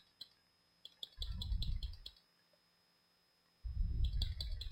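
Computer mouse clicking in small clusters, with two low, muffled rumbles on the microphone of about a second each.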